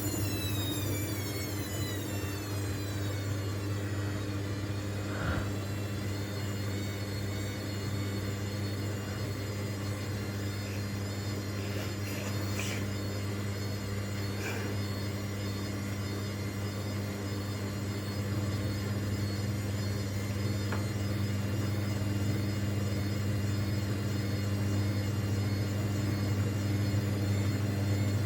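Washing machine running with a steady low hum. A high motor whine falls in pitch over the first few seconds, and a few brief clicks sound partway through.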